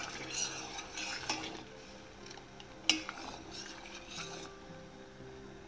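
A steel ladle stirring and scooping sugar syrup in a stainless steel saucepan as it bubbles at a simmer, with two sharp clinks of ladle on pan, the louder one about three seconds in.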